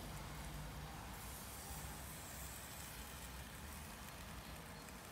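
Faint sizzling hiss from a charcoal kettle grill as barbecue sauce is brushed onto the meat on the hot grate. The hiss is a little brighter between about one and three seconds in, over a low rumble.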